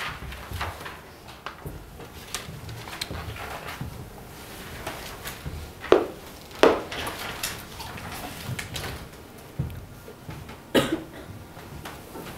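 Quiet classroom room tone with scattered small knocks and clatter of objects against a blackboard and its chalk tray. Two sharp knocks a little under a second apart come about six seconds in, and another near the end.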